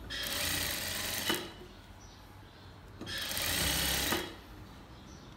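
Sewing machine stitching through fabric in two short runs of about a second each, with a pause between them; the second run starts about three seconds in.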